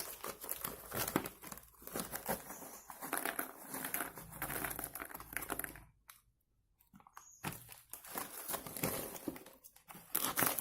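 Thin plastic snack packets crinkling and rustling as they are handled and torn open, with a gap of about a second and a half about six seconds in.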